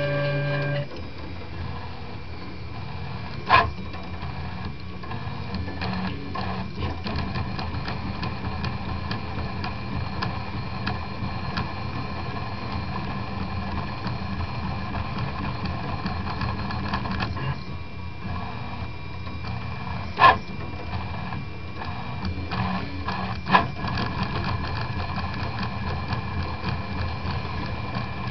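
RepRap Prusa Mendel 2 3D printer printing in PLA: its stepper motors whir and buzz steadily as the print head and bed move back and forth. A steady pitched hum stops just under a second in, and three brief, sharp louder sounds stand out, one a few seconds in and two near the end.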